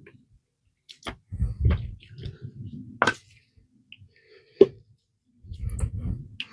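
Handling noises from work on an electric scooter's wheel: a few sharp clicks and knocks of tools and parts, with two stretches of low rubbing and rumbling as the parts are moved about.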